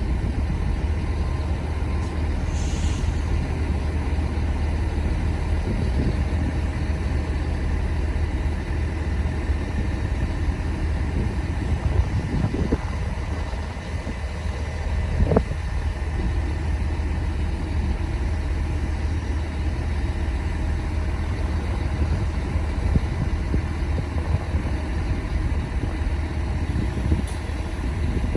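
Great Western Railway Class 800 train pulling out of the station with a steady low rumble. A single sharp click comes a little past halfway.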